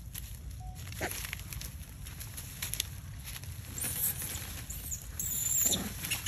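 Light rustling and patter of macaques moving over dry fallen leaves, with thin, high wavering chirps in the second half.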